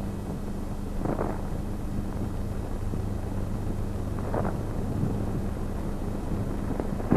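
Steady hiss and low hum of an old film soundtrack, with two brief faint sounds about a second in and about four seconds in.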